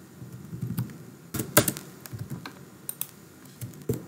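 Computer keyboard being typed on: irregular key clicks, a few of them struck harder.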